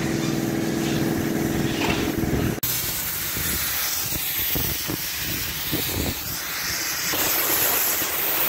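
An engine running with a steady hum for the first couple of seconds. Then, after a sudden change, a gas cutting torch hisses as it cuts along a steel truck chassis rail, getting louder and brighter near the end.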